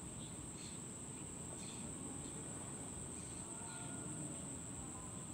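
Rural outdoor ambience: a steady, high-pitched insect drone, with a few faint bird chirps and a low rumble beneath.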